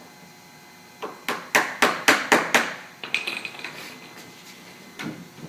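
A quick run of about six sharp knocks, about four a second, as PVC ogee arch pieces and their connectors are tapped together. A short squeaky scrape follows, and one more knock comes near the end.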